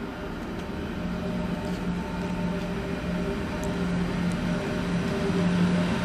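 A DSB MF (IC3) diesel multiple unit approaches slowly. Its diesel engines give a steady droning hum that grows gradually louder as the train draws nearer.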